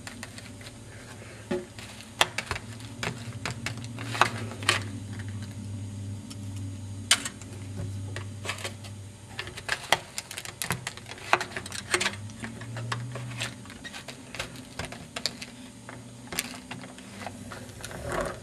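Small plastic Lego parts clicking and clacking irregularly as the model garbage truck's cart tipper arm is worked by hand, over a steady low hum. A louder scrape comes near the end.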